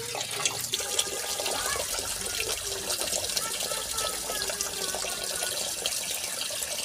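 Tap water running in a steady stream into a plastic colander of split moong dal, splashing and churning as the lentils are rinsed.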